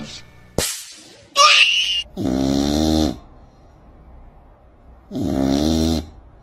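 Domestic cat snoring in its sleep: two long, loud snores about three seconds apart, each a buzzing tone with a breathy hiss. Before them, about a second in, comes a short, sharp high-pitched sound.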